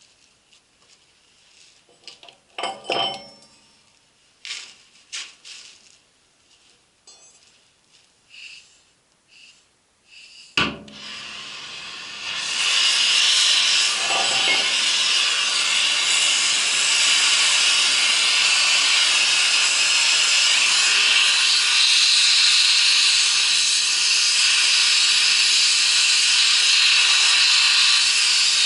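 Metal tools clinking as they are handled, then a sharp pop about ten seconds in. From about twelve seconds a gas-welding torch flame hisses loudly and steadily.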